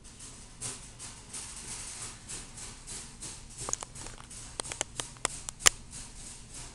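Rustling handling noise from a handheld camera carried on foot, with a run of sharp clicks in the last half, the loudest about five and a half seconds in.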